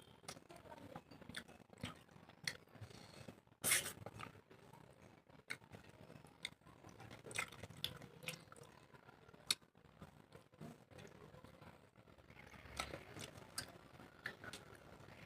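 A person eating a meal of rice and fish curry: chewing with scattered small mouth clicks and smacks, the sharpest a little under four seconds in.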